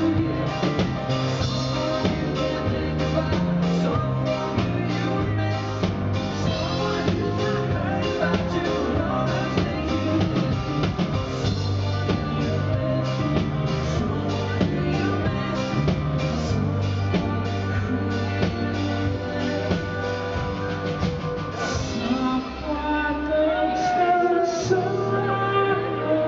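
Rock band playing live, with singing over the band.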